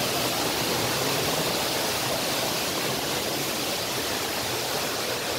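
Small waterfall cascading over rocks: a steady rush of falling water, growing a little fainter near the end.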